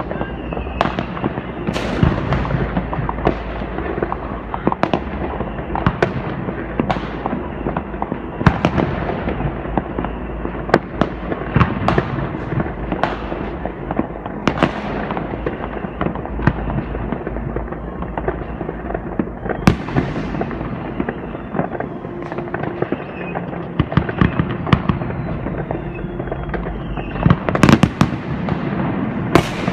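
New Year's Eve fireworks: a continuous barrage of firecrackers and rocket bangs going off in quick succession over a steady crackling rumble, with a tight cluster of sharper bangs near the end.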